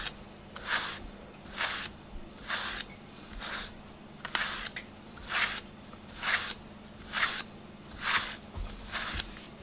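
A grooming brush being drawn through a cat's fur in regular strokes, about one a second, each a short brushing rasp.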